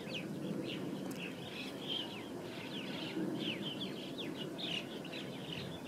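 Small birds chirping and twittering: many short, quick calls overlapping one another throughout, over a low, steady background hum.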